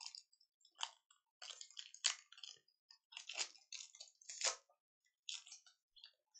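Foil wrapper of a 1990–91 SkyBox basketball card pack crinkling and tearing as it is worked open by hand, in a run of irregular crackles.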